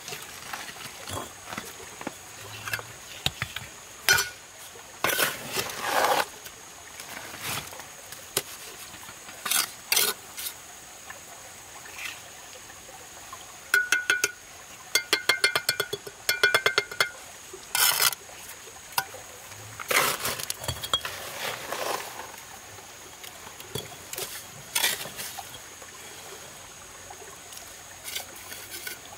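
Steel brick trowel scraping wet mortar and knocking hollow clay bricks into place: scattered clicks and short scrapes. Midway, a quick run of ringing metallic taps as the trowel is knocked against a brick to bed it.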